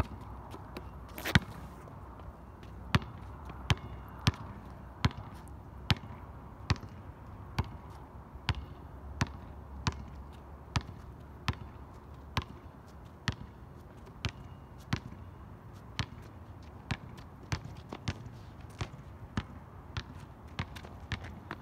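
Basketball dribbled on an outdoor asphalt court: steady, evenly spaced bounces about one every three-quarters of a second. A sharper smack comes about a second in.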